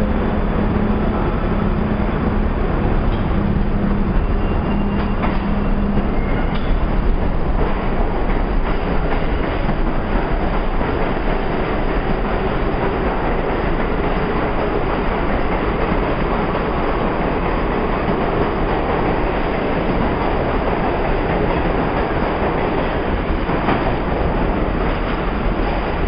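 Budd-built R32 subway train pulling out of the station and running past, a loud steady rumble of wheels and motors on the rails.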